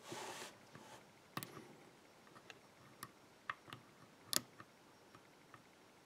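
Faint, irregular metallic clicks of a hook pick and tension wrench working the pins inside an EVVA five-pin euro cylinder, while trying to set the last spool pin; the loudest click comes about four seconds in. A short soft rustle opens it.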